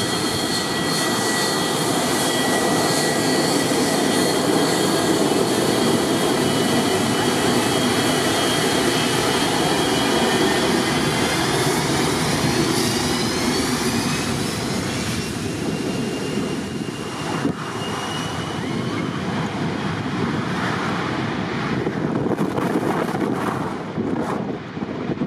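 Boeing 727 freighter's three rear-mounted Pratt & Whitney JT8D turbofans running as the jet taxis past and turns away onto the runway: a steady jet roar with a whine that climbs in pitch about halfway through. Wind buffets the microphone near the end.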